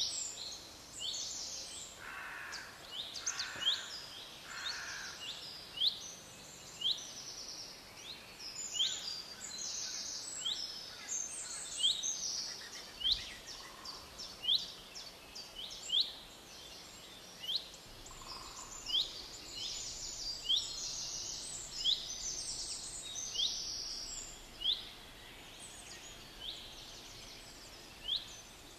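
Birds calling: short, sharp high-pitched notes repeated one or two a second, often overlapping, over steady outdoor background noise.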